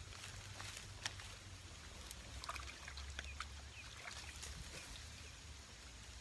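Wind buffeting the microphone as a steady low rumble, with scattered faint clicks and ticks.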